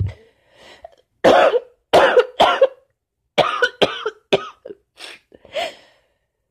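A woman with a cold and allergies coughing: three strong coughs a little over a second in, then a run of weaker, shorter coughs.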